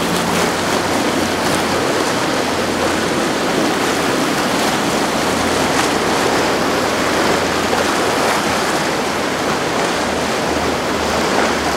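Rough inlet water: waves and churning wash, with a steady low drone of boat engines underneath.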